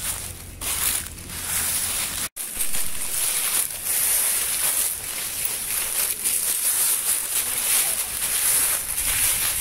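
Footsteps crunching and rustling through a thick layer of dry fallen leaves, with a momentary break about two seconds in.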